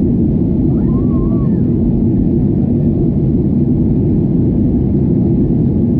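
Steady, loud engine and airflow noise inside the cabin of a GOL Boeing 737 airliner, an even low rumble with no change in level.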